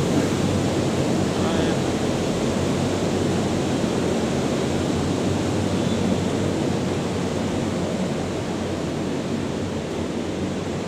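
A steady rushing noise with no distinct events, easing slightly in the last few seconds.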